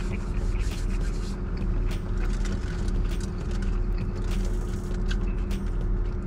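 A person chewing food and crinkling a paper taco wrapper, with many short irregular rustles and clicks, over a steady low hum inside a car's cabin.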